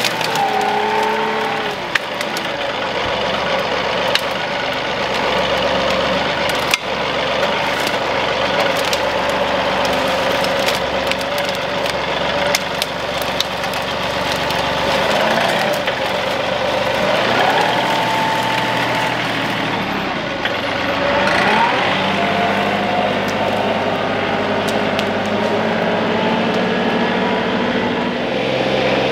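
John Deere 2038R compact tractor's diesel engine running steadily, its pitch rising and falling at times as the machine works, with occasional sharp knocks.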